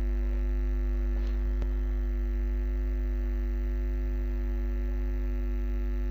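Steady electrical mains hum with several steady overtones, and two faint ticks about a second and a half in.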